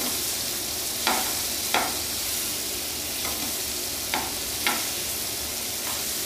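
Paneer cubes sizzling steadily as they shallow-fry in hot oil in a nonstick pan, with a few sharp taps and scrapes of a slotted metal spatula against the pan as the pieces are flipped to brown the other side.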